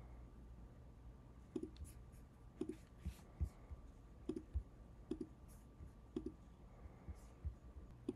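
Faint computer mouse clicks, irregular and roughly one a second, over a low steady hum.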